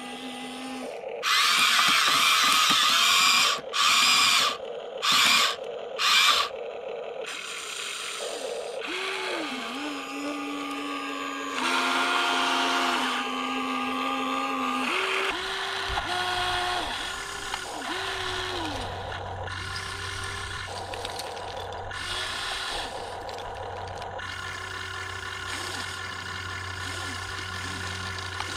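Huina 1593 RC excavator's electric breaker hammer rattling loudly, one long burst followed by three short ones, then the whine of the excavator's small electric motors rising and falling in pitch as it moves. A steady low hum comes in about halfway through.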